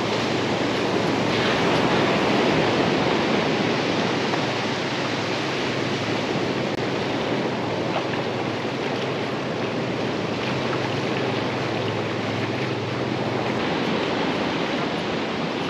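A rain-swollen creek rushing steadily.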